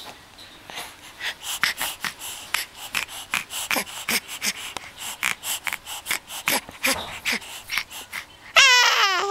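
A baby's quick short breaths, a few a second, then near the end a loud, high squeaky 'kyu~' cry.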